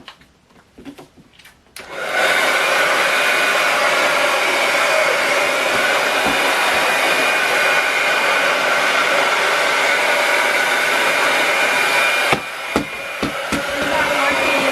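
Handheld hair dryer switching on about two seconds in and running steadily, a rush of air with a steady whine in it. Near the end it drops for a moment with a few clicks, then runs again.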